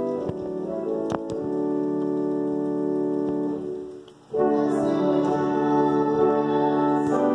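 Hymn music on a keyboard instrument, held chords sustained in the manner of an organ. The chords break off briefly about four seconds in, then come back louder.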